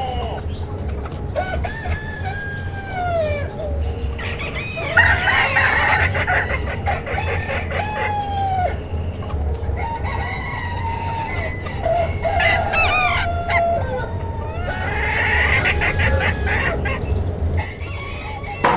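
A flock of chickens calling over one another: roosters crowing several times in long drawn-out calls amid continual hen clucking and cackling, over a steady low hum.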